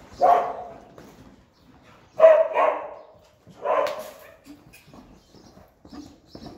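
A dog barking four times: one bark at the start, two quick barks about two seconds in, and one more a little after that.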